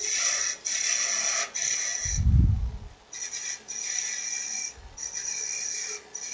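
A gouge cutting spinning aspen on a wood lathe, a cove being cut to remove waste wood. The cut hisses with a steady high ring in repeated passes, breaking off briefly between them. A dull low thump sounds about two seconds in.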